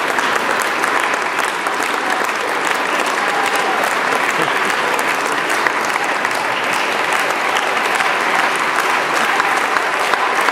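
Audience applauding steadily, a dense even clapping, with a few voices faintly audible under it.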